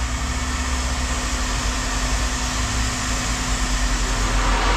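An engine idling steadily: a continuous low rumble with a constant hum.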